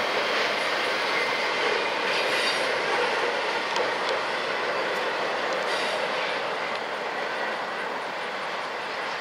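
Intermodal freight train's container-laden well cars rolling past, a steady rush of steel wheels on rail with a faint wheel squeal and occasional clicks. It gets a little quieter over the last few seconds.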